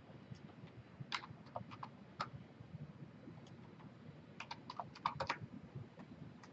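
Faint computer keyboard and mouse clicks: a few scattered clicks, then a quick run of keystrokes about four to five seconds in.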